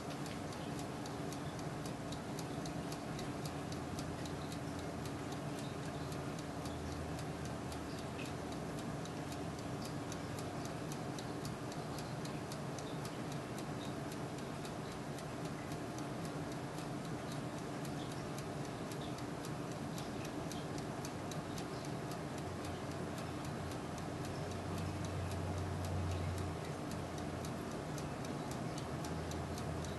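Turbo convection oven running: a steady fan hum with a dense, rapid fine ticking over it.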